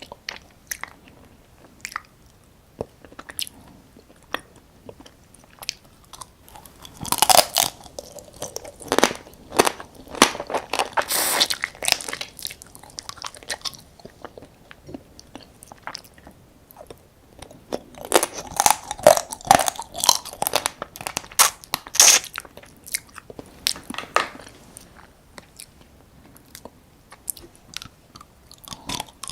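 Close-miked eating of soy-sauce-marinated raw crab: biting and crunching through the crab's shell and chewing. It comes as scattered clicks at first, then two longer stretches of dense, wet crackling.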